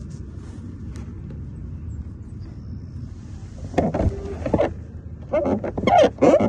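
Luge cart's wheels rolling down the paved track, a steady low rumble with wind noise. About four seconds in and again near the end, a voice calls out loudly over it.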